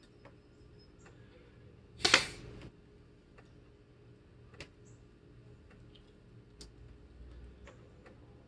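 A single hard puff of breath blown through an 18-inch blowgun, firing a dart, about two seconds in. After it, a few faint clicks as the next dart is handled and loaded.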